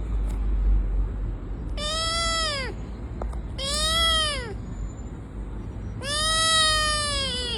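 A cat meowing three times, each meow rising and then falling in pitch; the third is the longest.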